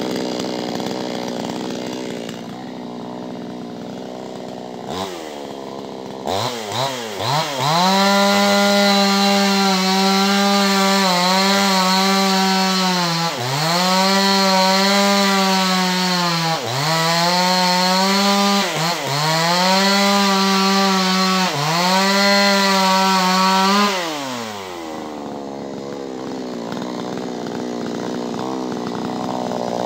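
Vulcan VSL550 55 cc two-stroke chainsaw running: it idles at first, is blipped a few times about six seconds in, then is held near full throttle for about sixteen seconds with several brief dips in pitch, and drops back to idle about 24 seconds in.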